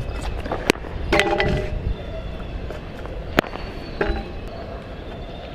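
Stunt scooter knocking on a hard outdoor court during a flatland trick attempt: two sharp knocks a few seconds apart, with short squeaks in between, over a low background rumble.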